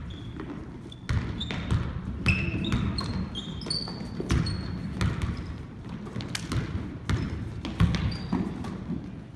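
Basketball dribbled and bounced on a hardwood gym floor, a run of sharp thuds, with several short high sneaker squeaks as players cut and stop.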